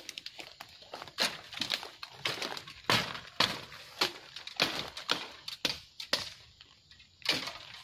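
Dry bamboo stems and twigs cracking and snapping as they are pulled and broken out of a bamboo clump. The cracks come as an irregular string of sharp snaps with crackling between them.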